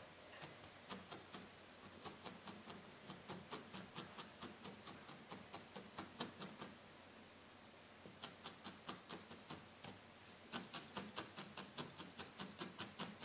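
A felting needle stabbing repeatedly into wool pre-felt: faint ticks about three a second, stopping for a moment about seven seconds in, then coming faster and louder near the end.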